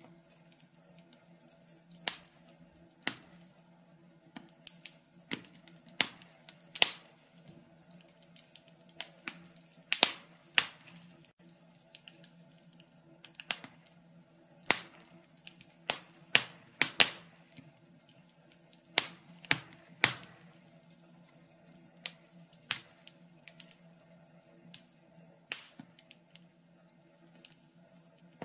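Logs burning in a fireplace, crackling with irregular sharp pops and snaps, one or two a second, some much louder than others, over a faint steady hum.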